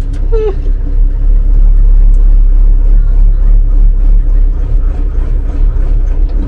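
Magirus Deutz truck's air-cooled Deutz diesel engine running steadily at low revs, a low, constant hum.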